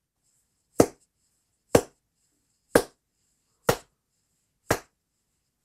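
Smartphone metronome app clicking at 60 beats per minute, five short sharp clicks about a second apart, played over Bluetooth (AAC) through ag COTSUBU MK2 wireless earbuds. The clicks land late, as the app's pendulum reaches the end of its swing: the earbuds' Bluetooth latency.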